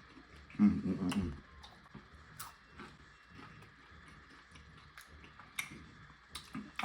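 Close-up chewing of pizza with scattered wet mouth clicks, and a short hummed "mm" about a second in.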